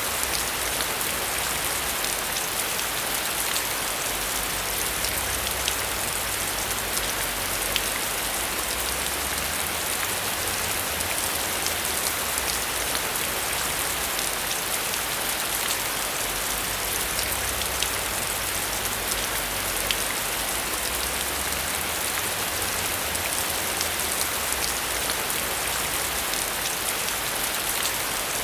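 Heavy rain falling steadily, with many distinct drop impacts ticking through the steady hiss.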